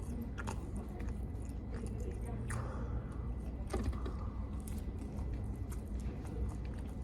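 A person chewing and biting into orange chicken close to the microphone, with scattered small crunches and clicks over a steady low hum.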